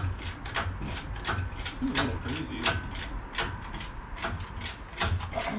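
Hand-pumped hydraulic engine hoist being worked to lift a car body on its chain, the pump handle and linkage clicking and clanking in a steady rhythm of about two to three strokes a second.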